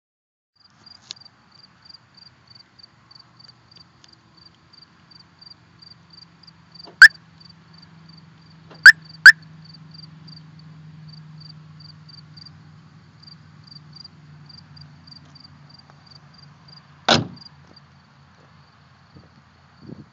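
DEI 514N alarm siren chirping: one short chirp for lock about seven seconds in, then two quick chirps for unlock about two seconds later. A faint high ticking runs underneath at about three ticks a second, and near the end comes a single heavy thump, the bonnet being shut.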